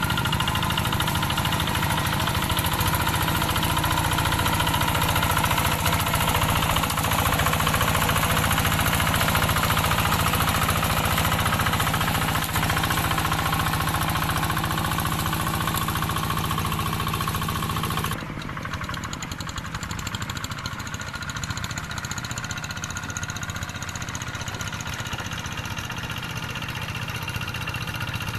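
Single-cylinder diesel engine of a two-wheel hand tractor running steadily while it ploughs. About two-thirds of the way in, the sound drops abruptly to a quieter, more distant engine.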